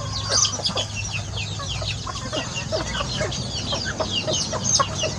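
Chickens clucking, with a dense run of short, high falling chirps.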